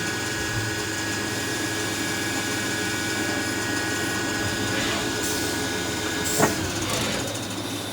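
Haas GT-10 CNC lathe running its machining cycle dry on 303 stainless, the spindle turning as the turning tool deburrs the thread: a steady machine hum with a high whine that stops at a sharp click about six and a half seconds in.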